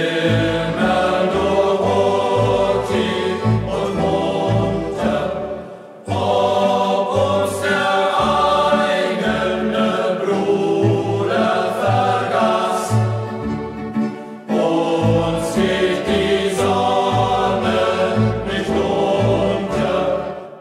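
A youth group's choir singing a German hiking song in several phrases, the final chord dying away near the end.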